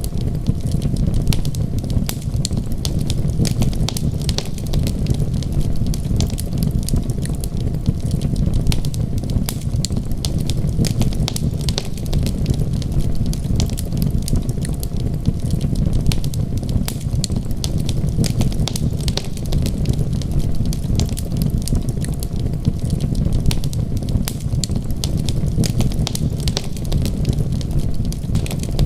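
Wood fire crackling in a fireplace, with many small sharp pops over a steady low rumble.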